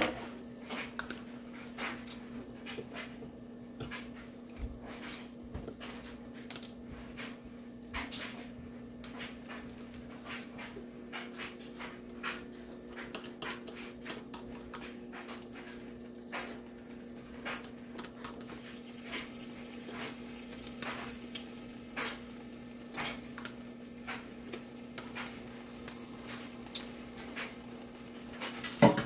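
Kielbasa sausages sizzling in a covered pan, with irregular pops and crackles of spattering fat over a steady low hum, and one louder knock near the end.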